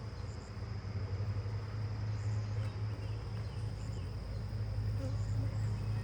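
Agitated honeybees buzzing around an opened hive, a steady low hum without pauses.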